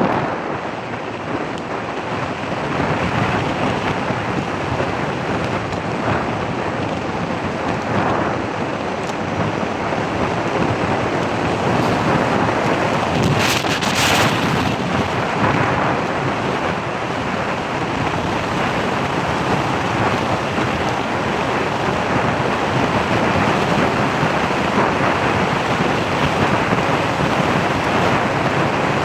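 Steady wind noise on the microphone, a constant rushing roar, with a brief sharper hiss about fourteen seconds in.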